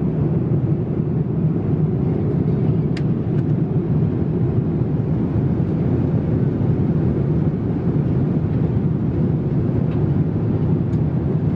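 Steady low rumble inside the cabin of a Boeing 787-8 Dreamliner climbing through about 27,000 feet: engine and airflow noise, with a couple of faint ticks.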